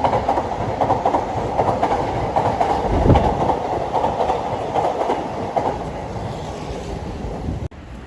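Seibu Railway electric train running by, its wheels clattering over the rail joints. The clatter grows quieter toward the end and then cuts off abruptly.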